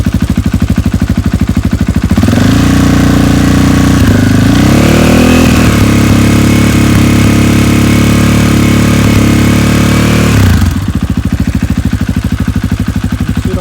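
2020 KTM 500 XCF-W's single-cylinder four-stroke engine through its stock muffler, idling with an even pulse. About two seconds in it is run up and held at a raised speed for about eight seconds, climbing a little partway, then dropped back to idle.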